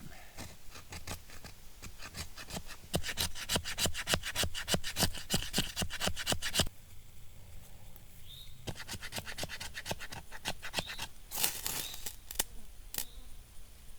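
Repeated scraping strokes, about two or three a second, in two runs: the first grows louder after about three seconds and stops about halfway through, and the second follows a couple of seconds later.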